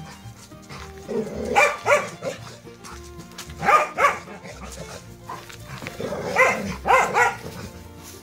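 Jindo dog barking during play, in quick pairs of barks that come three times, about two seconds apart.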